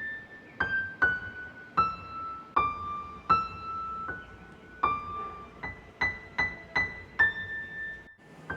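Background music: a slow, sparse piano melody of single high notes, one after another, each ringing out and fading.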